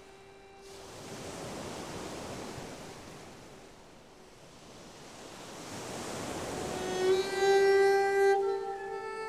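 Film soundtrack music: a sea-like wash of noise swells and fades twice, then a long held note with a bowed-string tone comes in about seven seconds in and steps up to a higher pitch near the end.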